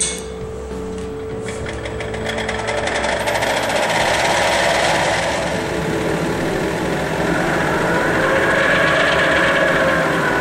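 Mazerustar KK250 planetary mixer starting up at full rotation and revolution speed: a rapid ticking that quickens and grows louder over the first few seconds as it spins up, then a steady whirring as the container rotates and revolves.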